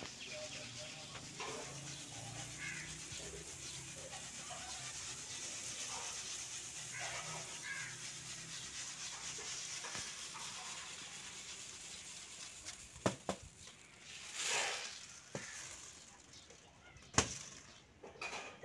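Wheat grain pouring in a steady hiss from a reed winnowing tray onto cloth and sacking as it is winnowed. Near the end come a few sharp knocks and a short louder rush.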